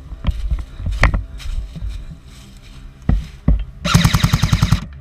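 Electric airsoft gun, a battery-powered Apex PP-19 Bizon, firing one full-auto burst of about a second near the end: a rapid, even rattle of roughly fourteen shots that stops abruptly. Before it come a few scattered knocks and bumps.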